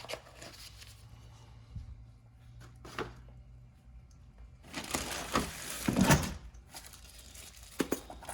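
Tools and their boxes being handled: a click, then a spell of rustling and rattling with a dull thump about six seconds in, and a couple of sharp clicks near the end.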